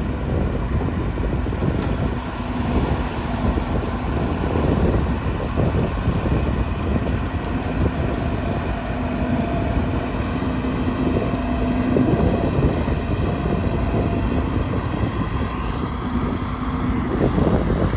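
Diesel engine of a JCB 140 NXT excavator running steadily under work, with a faint humming tone that comes and goes.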